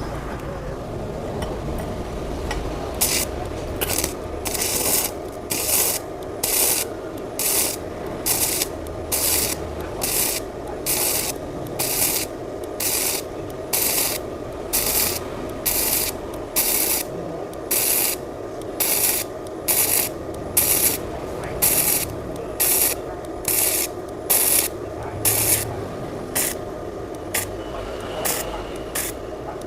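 Gasless flux-core MIG welder arc crackling in short, regular bursts, about one and a half a second, as the gun trigger is squeezed and released to stitch a bead across a gap in steel. A steady hum from the welding machine runs underneath, and the bursts begin about three seconds in.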